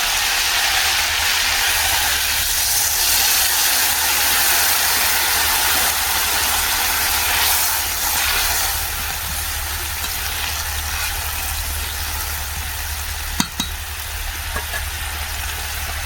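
Food frying in hot oil in a kadai: a steady sizzle, with a low rumble underneath and a single sharp click about thirteen seconds in.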